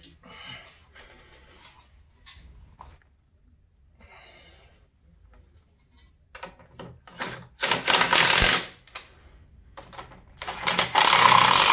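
Cordless impact driver running down a skid mounting bolt in two bursts of hammering rattle, about a second each, the second starting some three seconds after the first; light clinks of handling before them.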